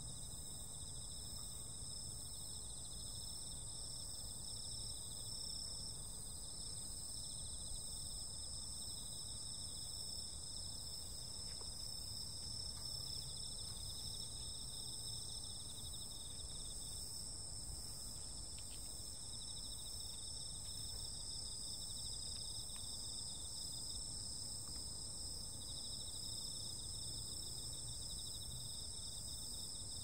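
A chorus of night insects calling continuously, several high-pitched trills layered at different pitches without a break, over a low steady rumble.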